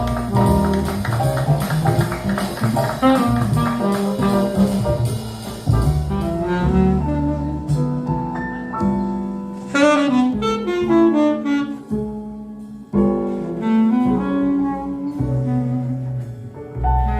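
Jazz with a saxophone melody over a walking bass line, recorded as it plays back through a high-end hi-fi stereo system.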